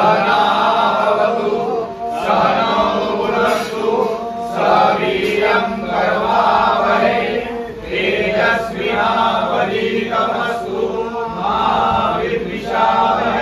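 Group of voices chanting a devotional Hindu recitation in unison. The chanting comes in phrases of a few seconds, with short dips between them.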